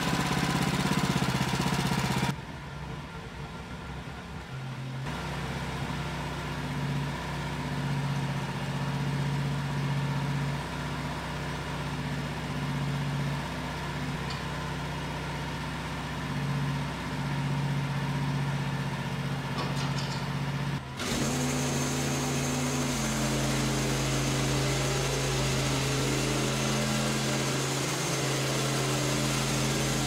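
Wood-Mizer LX55 sawmill engine running steadily without cutting. Its note drops about two seconds in and shifts again about twenty seconds in.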